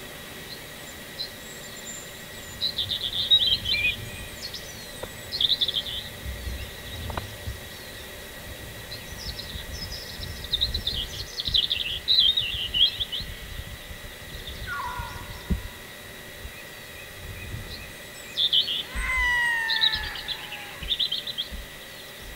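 Wild songbirds singing, several bursts of quick high chirps and trills with short pauses between, along with a couple of lower, falling calls.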